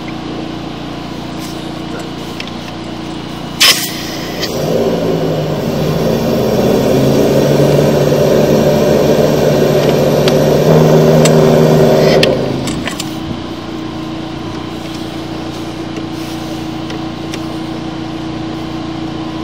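Hydro jetter's engine and pump running steadily. A sharp click comes about four seconds in, then the machine runs noticeably louder for about eight seconds before settling back to its lower drone.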